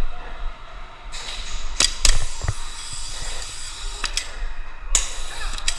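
Airsoft gun shots and mechanism clicks: a few sharp snaps, a close pair about two seconds in, then single ones about four and five seconds in, over light mechanical rattling.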